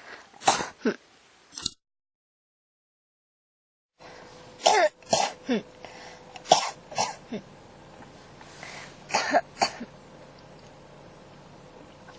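A person coughing hard in short fits: three coughs, then a break of dead silence about two seconds in. After that come three more bursts of two or three coughs each, over a faint steady hum.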